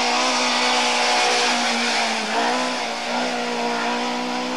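Audi 50 race car's four-cylinder engine running hard at high revs, holding a steady note with a short dip in pitch a little over two seconds in, over a steady hiss.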